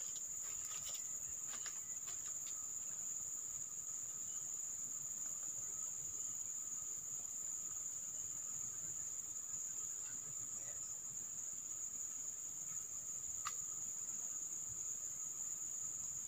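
Insects trilling steadily in one unbroken high-pitched tone, with a few faint ticks in the first couple of seconds.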